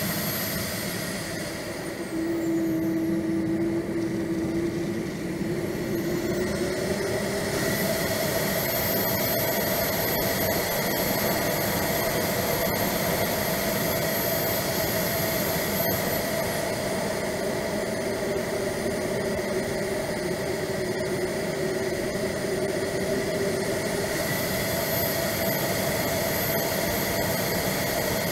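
Swiwin 170B model jet turbine heard from the jet's onboard camera: a high whine over rushing airflow. The turbine spools down in the first few seconds and back up by about 8 s in, then is throttled back again about 16 s in and spools up near the end.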